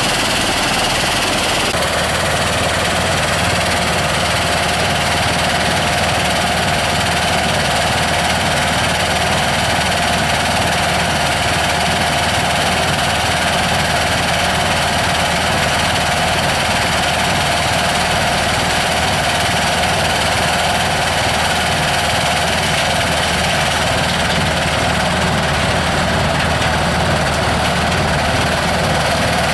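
Soil screening machine running steadily with a constant engine-like drone and a steady mid-pitched hum.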